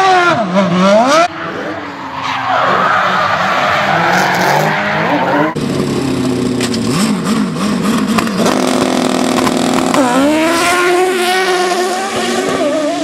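Car engine revving hard in a burnout, its pitch rising and falling again and again, with tyres squealing and skidding. The sound changes abruptly a little over five seconds in, and the revving carries on.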